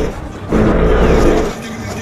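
Car engine sound, loud for about a second, followed by background music.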